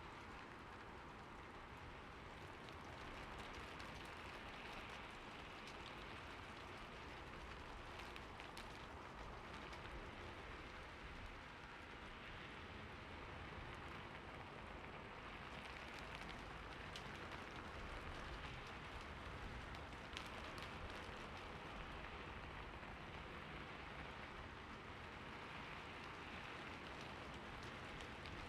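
Steady rain falling, a soft even hiss with scattered sharper drop ticks.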